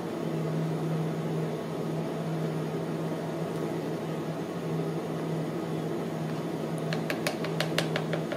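Steady electrical hum of a running appliance, with a run of light clicks near the end.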